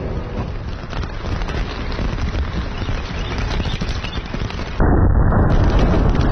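Outdoor wind noise with small clicks, then about three-quarters of the way in a sudden, loud, deep blast from an explosive charge set in a large log to split it, which carries on to the end.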